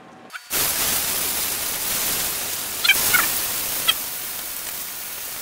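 Marinated chicken frying in hot ghee in a cast iron skillet, sizzling loudly. The sizzle starts suddenly about half a second in, with a few brief high squeaks in the middle.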